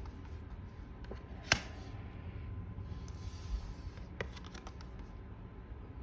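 Tarot cards being handled: a few light clicks and taps, the sharpest about a second and a half in and a quick cluster past the four-second mark, with a brief soft rustle of the cards in between.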